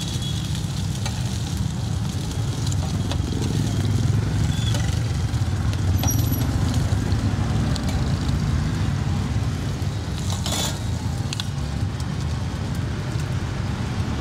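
Steady low rumble of street traffic, with faint clicks and scrapes of a metal spatula on a flat iron griddle.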